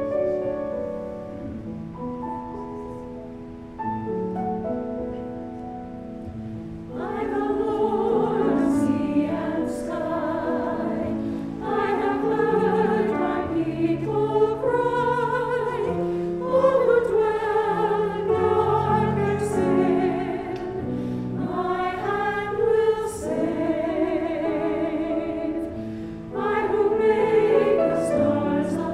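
Piano plays a short introduction, then a mixed church choir comes in about seven seconds in and sings a choral anthem with piano accompaniment.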